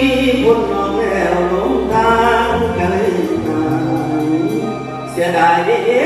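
A man singing into a stage microphone through the venue's sound system, with held, wavering notes. A low sustained backing under the voice drops out about two and a half seconds in.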